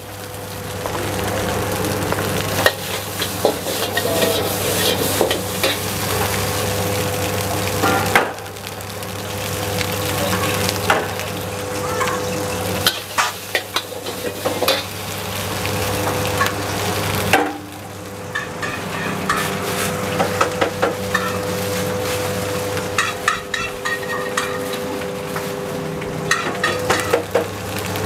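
A metal spatula scraping and clacking against a wok as rice is stir-fried over a gas flame, with the food sizzling. A steady hum runs underneath, dipping briefly a few times.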